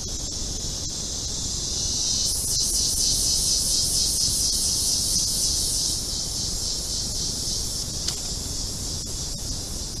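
Forest insects buzzing in chorus, a steady high-pitched drone that swells about two seconds in and eases back about six seconds in.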